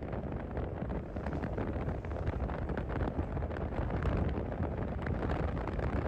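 Wind rushing over the microphone of a moving motorcycle, with engine and road noise beneath, steady throughout.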